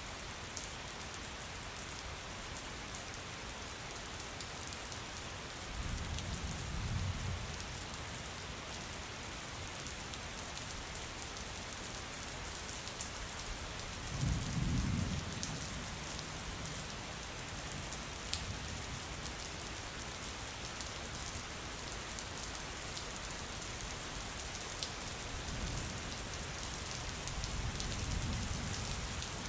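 Steady rain with scattered drips ticking, and three low rumbles of thunder: about six seconds in, about fourteen seconds in, and a longer one near the end.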